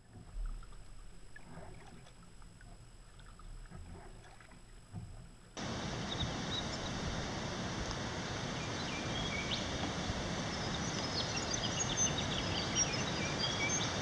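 Steady outdoor noise on the water, wind and water hiss from a kayak-mounted microphone, cutting in abruptly about five and a half seconds in after a quieter stretch. Many short high chirps sound over it in the second half.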